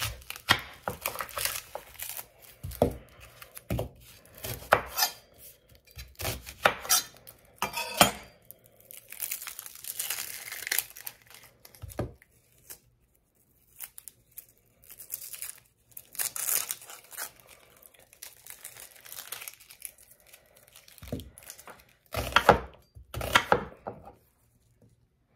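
Knife cutting through a sweet onion and knocking on the countertop, with dry, papery onion skin crinkling and tearing as it is peeled off. A quick run of slicing strokes comes near the end.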